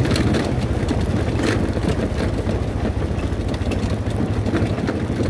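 ATV engine running steadily while riding over a rocky dirt track, with scattered clicks and knocks from the rough ground.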